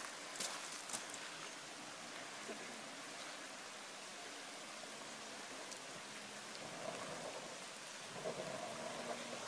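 Steady rushing hiss of fast-flowing floodwater over a creek crossing. A vehicle engine hums faintly under it and gets louder near the end.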